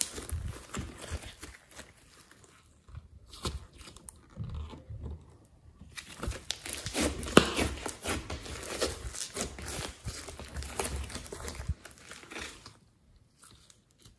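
Foam-bead slime being squeezed and stretched by hand, crackling and squishing. It is sparse for the first few seconds, busiest from about six to twelve seconds in, and fades near the end.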